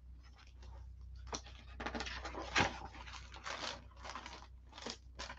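A dog panting nearby: quiet, short, breathy puffs coming irregularly.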